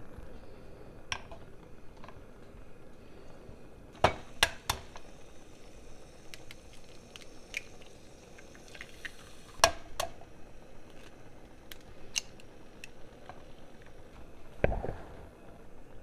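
Eggs being cracked on the rim of a metal saucepan: sharp taps of shell on metal in two clusters, about four and ten seconds in, with fainter clicks between. A dull thump comes near the end.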